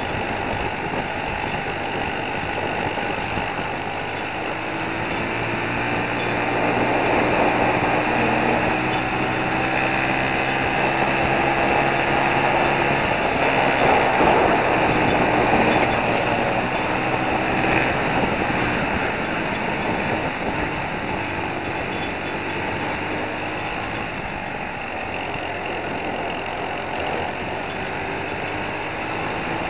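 Onboard sound of a racing kart's single-cylinder four-stroke Briggs & Stratton World Formula engine under full throttle, its pitch climbing steadily along the straights and dropping back for corners, loudest in the middle.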